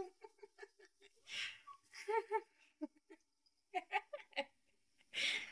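A small child giggling and squealing in short, separate bursts, with brief breathy laughs between quiet gaps.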